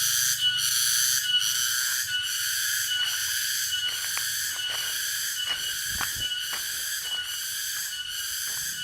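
Cicadas (tonggeret) singing: a loud, continuous, high-pitched buzzing drone, with short regular breaks about once a second at first.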